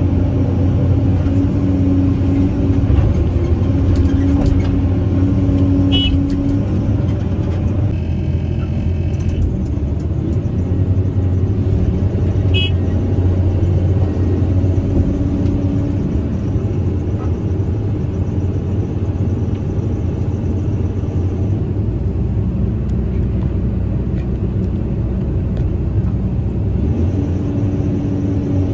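Caterpillar 320C excavator's six-cylinder diesel engine running steadily under working load, heard from the operator's cab as the hydraulics dig and swing the bucket. A higher hum drops out and comes back several times, and a brief high tone sounds about eight seconds in.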